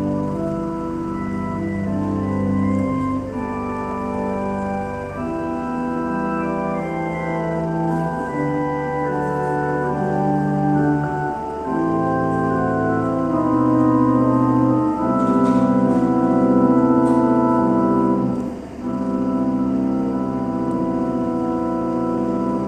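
Organ playing slow, held chords, with a brief break near the end.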